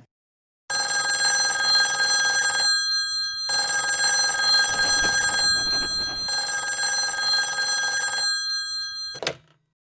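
Telephone ringing three times, each ring about two seconds long, with short gaps between.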